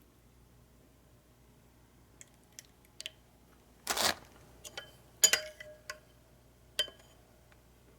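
Spoon clinking against a ceramic soup bowl: a handful of separate clinks, some with a short ring, and a brief scraping noise about four seconds in.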